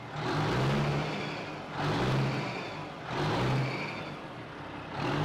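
Caterpillar diesel engine of a Peterbilt truck running, with the throttle blipped about four times so the engine rises and falls in pitch about every second and a half. The worn-out engine is blowing heavy smoke out of its crankcase breather, the sign of heavy blow-by.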